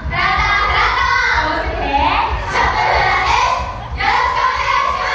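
Young women's voices through stage microphones and a hall PA, a sing-song greeting that lies between speaking and singing, with the pitch sliding up and down.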